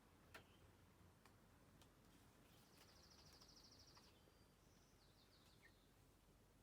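Very faint outdoor ambience with a small bird's high, rapid trill lasting about a second and a half, followed by a few short descending high notes. Two faint clicks come in the first second or so.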